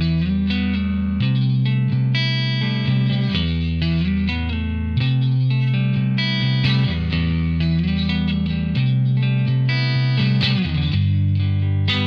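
Telecaster-style electric guitar played through a Bad Cat Cub valve combo amp, chords and notes ringing out and changing every couple of seconds.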